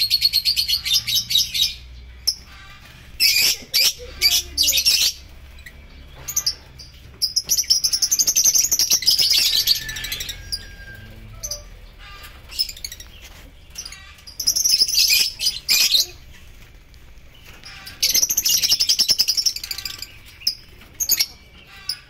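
Lovebirds in an aviary chattering in rapid, high-pitched bouts of one to two seconds, about five times, with quieter gaps between.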